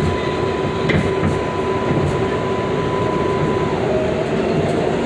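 7 train subway car running between stations, heard from inside the car: a steady rumble of wheels on rail with light clicks, and a motor whine whose pitch begins to glide near the end.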